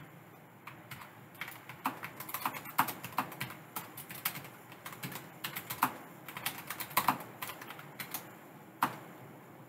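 Typing on a computer keyboard: a quick, uneven run of key clicks that thins out near the end.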